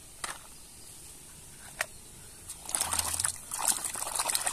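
A couple of light clicks, then, about two-thirds of the way in, water splashing and sloshing in a plastic basin as a hand swishes and scrubs a small plastic toy car in it.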